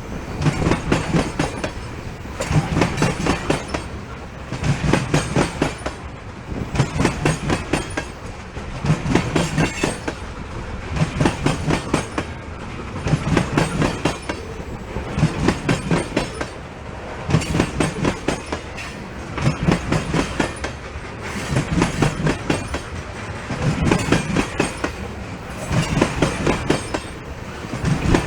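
Loaded freight cars of an ethanol train rolling past, wheels clacking in a clustered beat that repeats about every two seconds as each car goes by.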